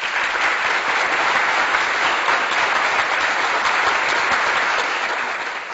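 Audience applauding: a dense, steady wash of many hands clapping, tapering off near the end.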